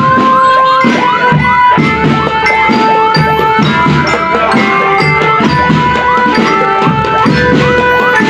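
Loud music with a steady hand-drum beat and repeated gliding notes, played through a big carnival sound system.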